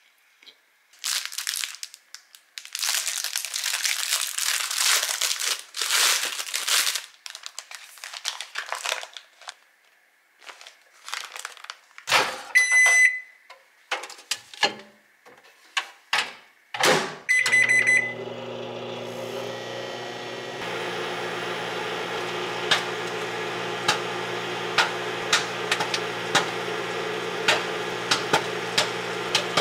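Crinkling and handling of a paper microwave-popcorn bag. Then two microwave oven keypad beeps about five seconds apart, and the microwave starts with a steady hum. Sharp pops begin over the hum and come more often near the end as the kernels start popping in the swelling bag.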